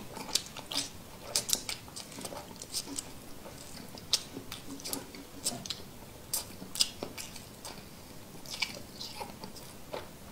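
A man eating noodles with boiled eggs: close, wet mouth sounds of chewing and slurping, with many irregular sharp clicks and smacks.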